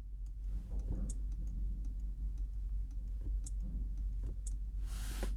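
Scattered light clicks and taps from a handheld diagnostic scan tool being handled and operated, over a steady low hum, with a brief rustle about five seconds in.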